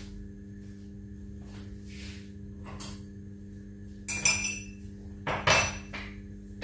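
Dishes and utensils clinking in a kitchen: a few light knocks, then two louder clatters about four and five and a half seconds in, over a steady low hum.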